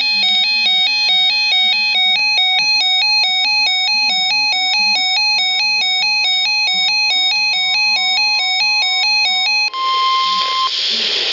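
Emergency Alert System attention tone: a loud electronic warble switching between two pitches several times a second, for about ten seconds. It gives way to a steady beep lasting about a second and then a hiss of broadcast static. It signals a relayed severe thunderstorm warning.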